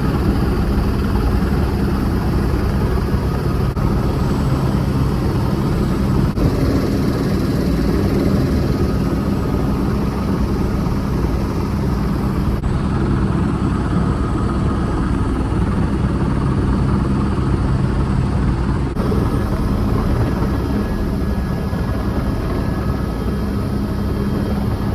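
Tour helicopter's rotor and turbine engine running loudly and steadily.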